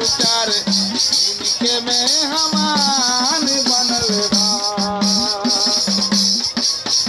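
A man singing a song live in long, gliding notes, with a shaken rattle keeping a steady rhythm underneath.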